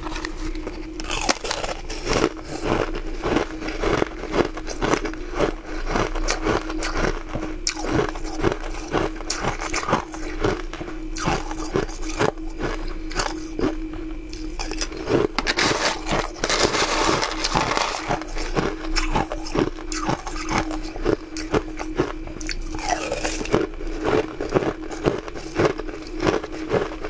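Close-up crunching and chewing of frozen ice shavings taken from a spoon, many crisp crunches in quick, uneven succession, over a steady hum.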